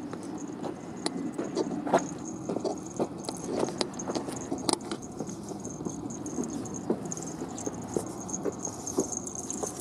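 Several leashed chihuahuas walking on asphalt: irregular light clicks and patter of claws on the pavement, with metal leash clips and harness rings jingling.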